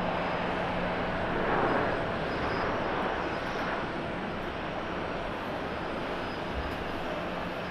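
Jet engines of an Airbus A321neo airliner rolling on the runway: a continuous rushing noise that swells slightly about two seconds in.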